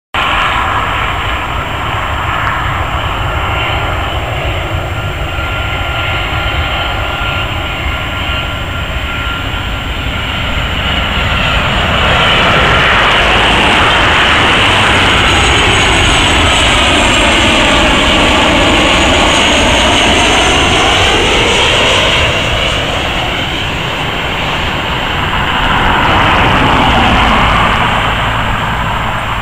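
Boeing 737-700's CFM56 turbofan engines on landing approach, passing low overhead. A steady jet noise with a high whine swells to its loudest in the middle, sweeping as the aircraft goes over, then fades as it moves away towards the runway.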